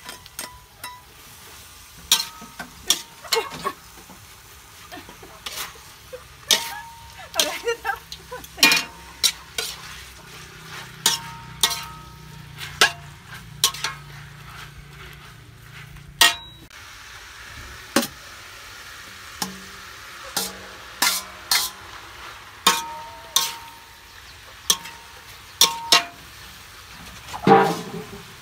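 Metal spatula scraping and clanking against a metal wok during stir-frying of water spinach and beef, irregular strikes, some ringing briefly, over a steady sizzle.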